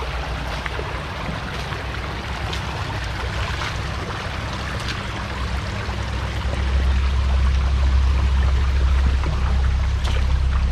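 Shallow mountain creek trickling and splashing over rocks, steady throughout. A low rumble joins in and grows louder about six and a half seconds in.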